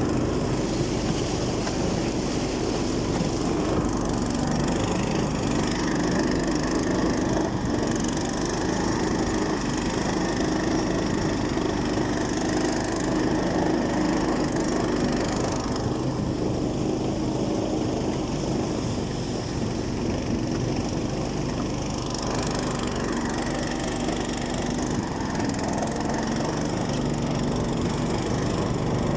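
A motor running steadily at an even speed, with a rough noisy hiss over it.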